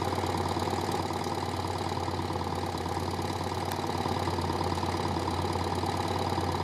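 Air-cooled BMW R 80 GS boxer-twin engine of a sidecar rig running steadily at low revs, with no revving.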